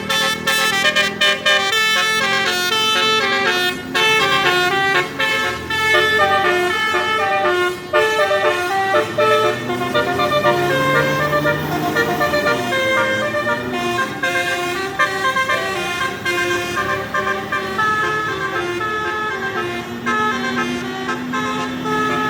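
Telolet-style basuri multi-tone musical horn playing a quick melody of stepped notes, with an engine running underneath.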